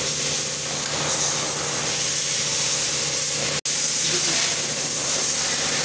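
Steady hissing noise over a low, even hum.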